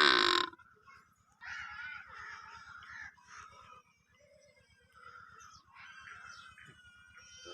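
Animal calls: a loud, short, harsh call at the start, then softer calls at intervals.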